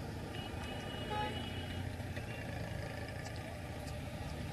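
Faint, steady low rumble of road traffic, with a brief faint tone about half a second in.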